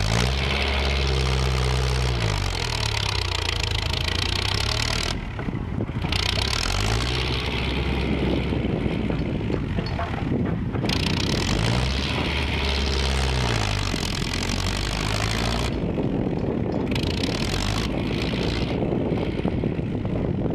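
Kubota tractor's diesel engine running under load as its front blade pushes and grades soil, the revs rising and falling a few times.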